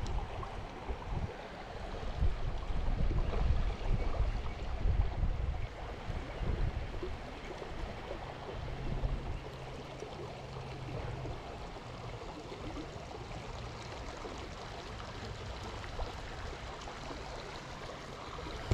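Small creek running and trickling, with louder low thuds and rumble over the first six seconds or so before it settles into a steady wash.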